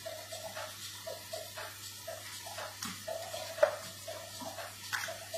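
Fresh tomato sauce with garlic and olive oil cooking in a frying pan, sizzling softly with small irregular pops. A sharp click sounds about three and a half seconds in, and a weaker one near the end.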